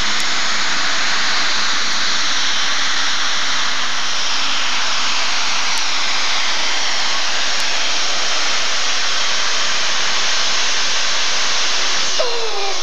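Super stock pulling tractor running at full throttle under load while hauling the sled: a loud, steady engine noise with a lot of hiss.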